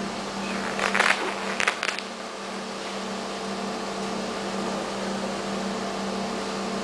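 EN57 electric multiple unit running, a steady low hum, with a few brief rattling noises between about one and two seconds in.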